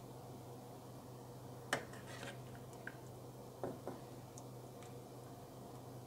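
A few faint clinks of a steel ladle against a stainless steel pot and a porcelain bowl, with soft wet sounds of thick bulgur soup being ladled and poured, over a steady low hum.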